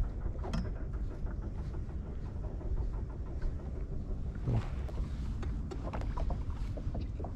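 Wind buffeting the microphone as a steady low rumble, with water lapping against the hull of a small open boat drifting at sea and a few light knocks.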